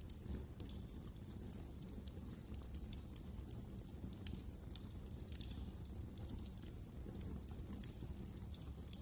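Wood fire crackling in a fireplace: irregular small crackles and pops over a steady low rumble.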